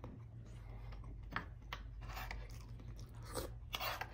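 A person chewing and biting food close to the microphone: wet mouth sounds and short crunchy clicks, the strongest about a second and a half in and again near the end.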